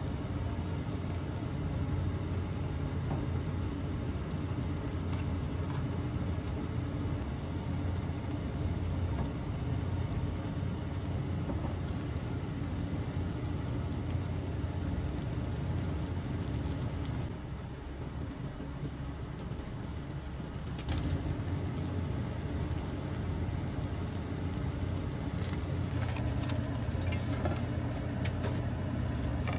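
A steady low hum that drops a little in level partway through, with a few light clicks and knocks, the last ones in the final few seconds.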